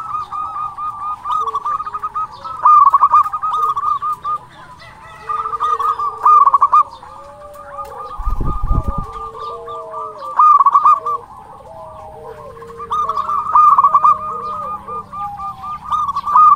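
Zebra dove (perkutut) cooing in repeated phrases of rapid, staccato trilling notes, a loud phrase every three to four seconds, with softer lower gliding coos between them. A brief low thump about eight seconds in.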